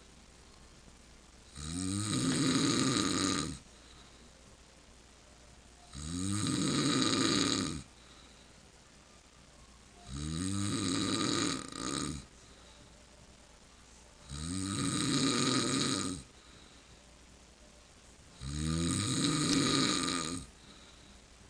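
A man snoring in his sleep: five long snores about four seconds apart, each lasting about two seconds, with quiet breathing gaps between them.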